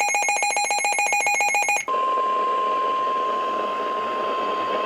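Emergency Alert System broadcast: a buzzing, rapidly pulsing digital data burst (the SAME header) cuts off suddenly about two seconds in. It is followed by the steady single-pitch 1050 Hz NOAA Weather Radio warning tone over radio hiss, which signals that an emergency warning message follows.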